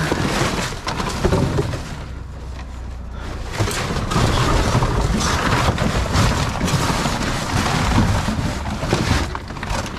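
Rustling, crinkling and knocking of trash being handled inside a dumpster. There is a steady low rumble for the first few seconds.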